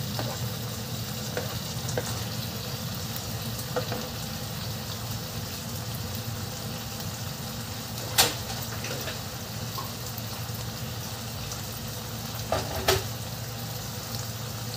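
Black bean sauce sizzling steadily in a nonstick wok around a fried pomfret. A few sharp clicks, the loudest about eight seconds in and two close together near the end.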